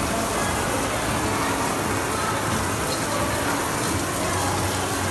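Water jets from a row of children's mounted play fire hoses spraying onto a mock burning building, a steady rushing hiss of spray and splashing.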